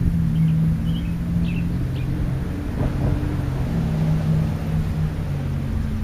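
Steady low engine hum with rumble, a few held pitches shifting slightly, with a few faint short bird chirps about one to two seconds in.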